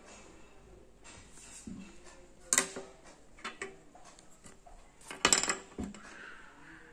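Drawing instruments being handled on a table: the plastic ruler put aside and a metal compass picked up, with two sharp clattering clacks about two and a half and five seconds in and lighter taps between.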